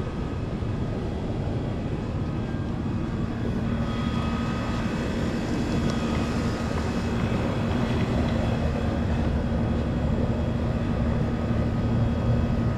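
A steady motor drone with a constant hum, growing slightly louder toward the end.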